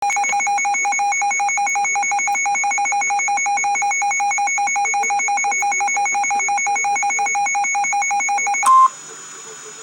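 Emergency Alert System attention signal for a tornado warning: a loud, rapidly pulsing electronic alert tone with a slight warble. It cuts off about 8.7 seconds in with a short higher beep, then a quiet steady hiss.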